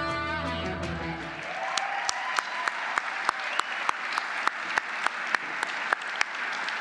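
Music fades out over the first second and a half, then an audience applauds, with one close clapper standing out at about three claps a second.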